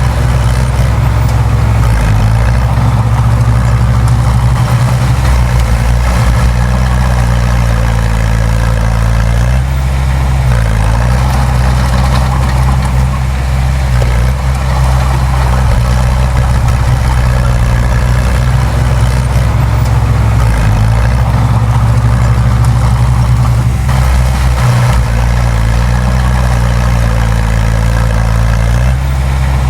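Heavy diesel engine of earthmoving machinery running steadily, its pitch shifting briefly a few times as the load changes.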